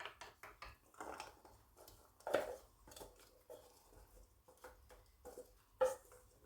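Irregular light knocks and clinks, a few with a brief ringing tone, as carrot pieces are laid into a clay tagine; the loudest two come about two seconds in and near the end.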